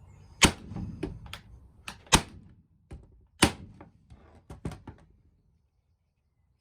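Corded electric nail gun (Titan TTB517STP nailer/stapler) firing 25mm nails on full power into softwood: three sharp clacks, with lighter clicks and knocks between them. The sound stops about five seconds in.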